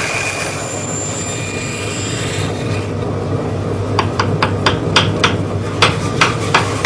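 A steady noise for the first two or three seconds, then light hammer taps from about four seconds in, roughly three a second in short runs: a hammer tapping a metal band onto the blade of an ash hurley.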